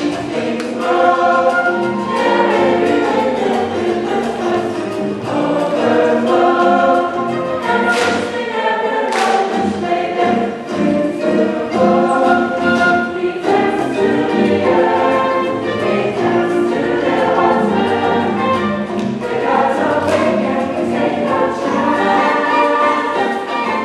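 High-school show choir singing a full-voiced number in harmony, many voices holding chords together. Two sharp hits about a second apart a third of the way in accent the music.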